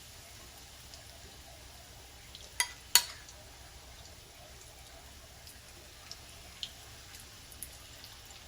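A batch of fish-and-egg snacks frying in hot oil: a steady faint sizzle with scattered small crackles. Two sharp clicks come close together about three seconds in.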